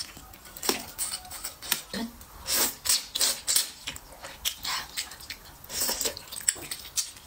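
Close-miked eating sounds: wet chewing and lip smacks on braised pig's trotter and noodles, with a few longer airy slurps, about two and a half seconds in and again near six seconds, as noodles are drawn into the mouth.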